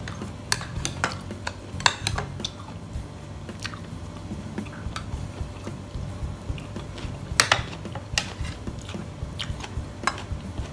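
A metal spoon clicking against a plate and tray, and close-up chewing of soft food. The clicks come scattered, the loudest about three-quarters of the way through.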